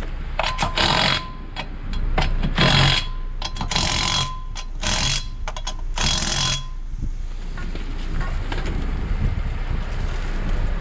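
Cordless impact tool run in five short bursts, spinning the rear wheel's lug nuts back on, over the low steady running of the car's idling engine.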